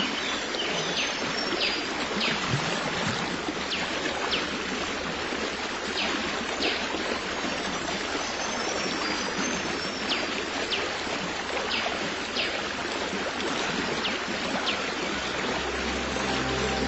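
Stream flowing steadily, with a bird giving short, high, falling chirps every second or so. Soft sustained music comes in near the end.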